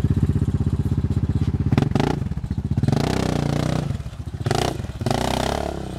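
Single-cylinder ATV engine running with a fast, even pulse. Then a Yamaha Grizzly 700's engine revs hard and unevenly while its tyres churn through mud and slush.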